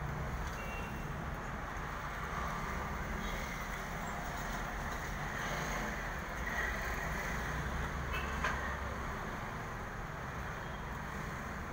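Steady low background rumble with a hiss, with a faint tick or two.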